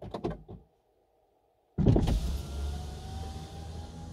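Audi A2's electric window motor starting about two seconds in and lowering the glass, a steady motor whine that rises slowly in pitch as it runs.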